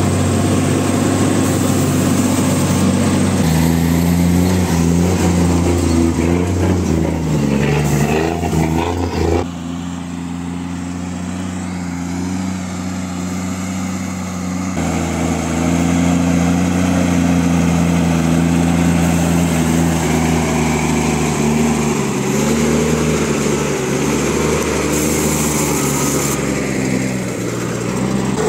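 Engine of a sugar-cane-loaded M35A2 6x6 army cargo truck running steadily under load as it crawls through soft ground, its note wavering slightly in pitch. It is heard first from inside the cab and then from outside beside the truck, and the sound changes abruptly twice.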